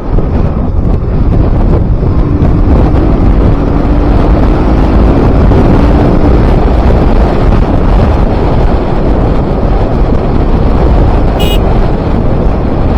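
Wind buffeting the microphone of a moving KTM RC 200 sport bike, with the bike's single-cylinder engine heard faintly beneath it, holding a steady note from about two to six seconds in. A brief high chirp sounds near the end.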